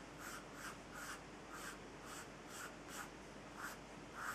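Pencil sketching on paper: short, quick scratchy strokes, about two to three a second, faint.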